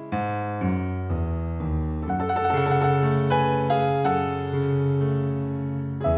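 Background music on a keyboard with a piano sound: sustained chords changing every half second or so over held bass notes.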